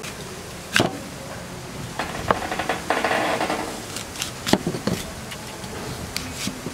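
Cleaver cutting a crisp green apple on a wooden cutting board: a sharp knock of the blade on the board, then a crisp crunching as it goes through the apple, then several more quick knocks.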